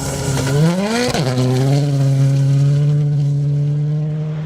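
Rally car engine at full throttle: the revs climb, drop sharply at an upshift about a second in, then hold at a steady pitch before easing off near the end.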